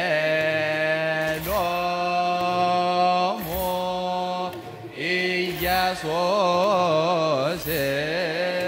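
Choir chanting an Ethiopian Orthodox wereb in unison. The notes are long and held, with wavering melismatic ornaments, and short breaks come between phrases.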